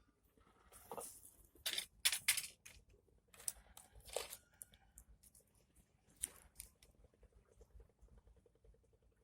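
A series of short rustling and scraping noises, with the loudest cluster about two seconds in and another about four seconds in.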